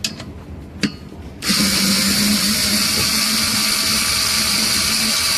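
Mini cordless screwdriver with a socket bit running steadily for about four seconds, spinning a nut off a bolt, after two light clicks as the socket goes onto the nut. The motor stops abruptly at the end.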